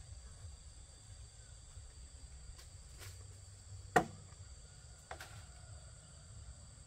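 Steady high-pitched insect chorus, with a few sharp knocks; the loudest knock comes about four seconds in.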